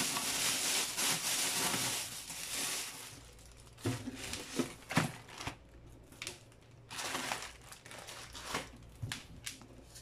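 Clear plastic wrapping crinkling as it is pulled off an inverter for the first two seconds or so. After that, a handful of light knocks and bumps as the metal-cased inverter is handled and set down on the table.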